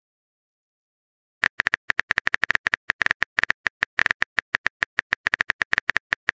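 Silence for about a second and a half, then rapid clicks of a simulated phone keyboard, about eight taps a second: the typing sound effect of a texting-story chat app as the next message is typed.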